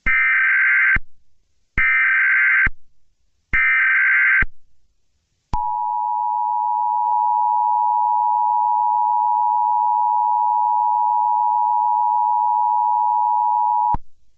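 Emergency Alert System tones: three short bursts of digital data tones (the SAME header, sent three times), then, after a brief pause, the steady two-tone attention signal sounding for about eight seconds before it cuts off. Together they announce an emergency broadcast, here a National Weather Service severe thunderstorm warning.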